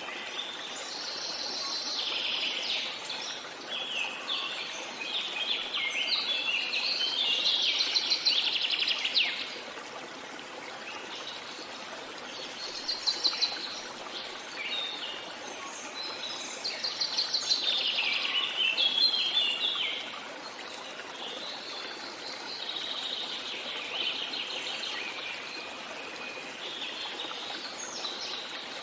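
Songbirds singing in long bouts of rapid, chattering notes that come and go, over the steady rush of a stream. The song is loudest in the first third and again about two-thirds in.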